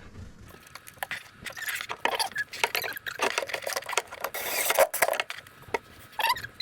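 Irregular clicking, scraping and rustling of small parts and tools being handled under a kitchen sink, with a denser burst of rustling about four and a half seconds in.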